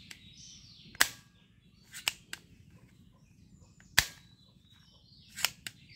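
A toy gun firing: about six sharp, irregularly spaced cracks, the loudest about one second and four seconds in.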